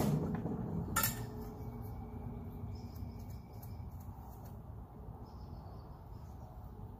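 A knock dying away at the start and a sharp metallic clank about a second in, from a steel cant hook working a maple log against the sawmill's steel bed. After that, faint bird chirps over a low steady background.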